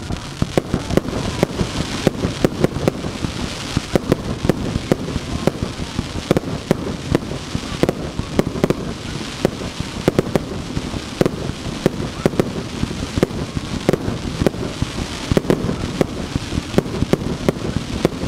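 Fireworks barrage: a rapid, unbroken string of loud launch thuds and burst bangs, several a second, over a constant crackling hiss.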